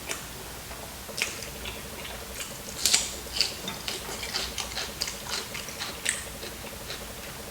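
Close-miked eating sounds: a quick run of short clicks and smacks from chewing and biting, starting about a second in and stopping near the end.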